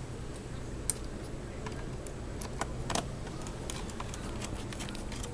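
Light clicks and taps of small plastic and metal laptop parts being handled during reassembly, with a sharp click about a second in and a louder clatter about three seconds in.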